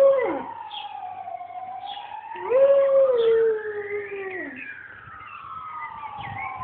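Chocolate Labrador howling along with a police siren's slow rising-and-falling wail. One short howl comes right at the start, and a longer one from about two and a half seconds in holds its pitch, then slides down at the end.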